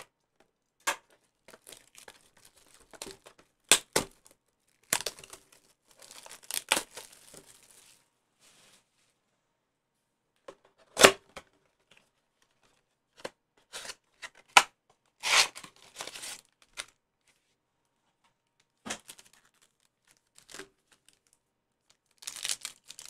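Plastic wrap being torn off a cardboard trading-card blaster box, its flaps opened and foil card packs handled: scattered tearing and crinkling with a few sharp snaps.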